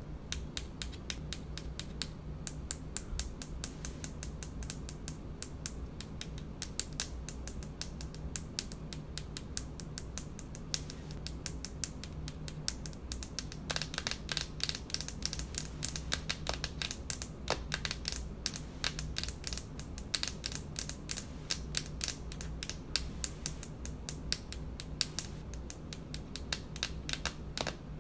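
Long fingernails tapping rapidly on a hard countertop: a dense run of quick, sharp clicks that never lets up.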